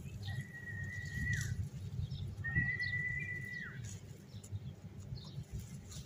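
A person whistling two long, steady notes, each about a second long and ending with a quick drop in pitch, as a recall call for free-flying lovebirds. Faint short chirps of the birds sound in between.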